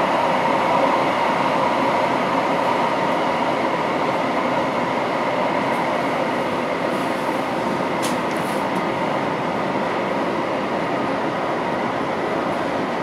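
Düsseldorf Stadtbahn light-rail car running along the track, heard from inside the car: a steady running noise with a steady whine through it, and a brief click about eight seconds in.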